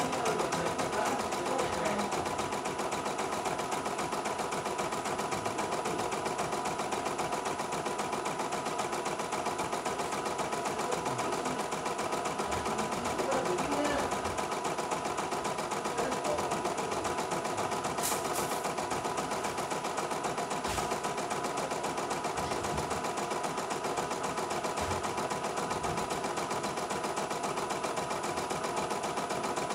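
CNY E900 portable embroidery machine stitching a design: the needle hammers at a fast, steady rate as the embroidery unit moves the hoop. The mechanical run is even, with a steady whir.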